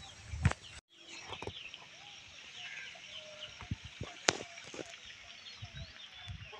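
Chickens clucking, with higher, shorter chirps among them, over a faint steady haze. The sound drops out for a moment about a second in, and a sharp knock stands out about four seconds in.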